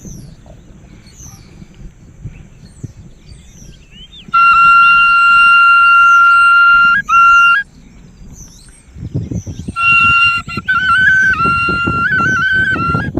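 A flute plays a folk tune of long held high notes. It starts about four seconds in, breaks off briefly, and comes back with quick trills and slides. Small birds chirp faintly throughout, and a low rumbling noise runs under the later notes.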